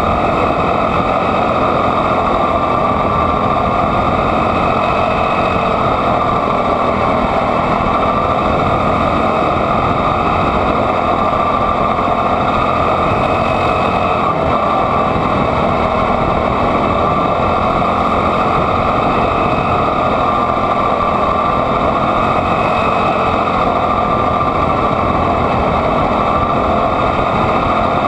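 Junior Honda quarter midget's small single-cylinder Honda engine running hard throughout, heard from on board the car, its pitch swelling and dipping slightly every several seconds.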